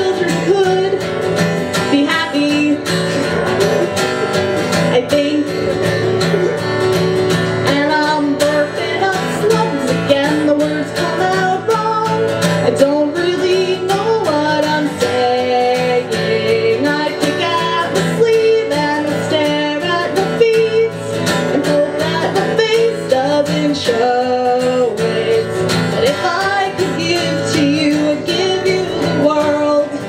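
A woman singing while strumming an acoustic guitar, a solo song that carries on without a break.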